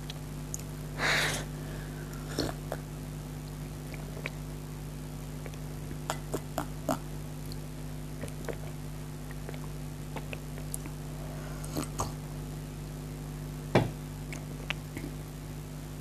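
Drinking from a coffee mug: a short slurping sip about a second in, then scattered small mouth and swallowing clicks, and a knock near the end. A steady low hum lies underneath.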